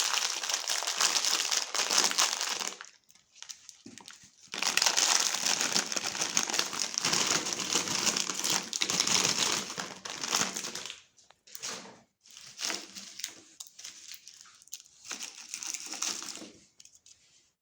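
Hard candy being crushed in a meat grinder: dense crackling and crunching. It stops briefly about three seconds in, resumes, then breaks up into separate shorter crunches over the last several seconds.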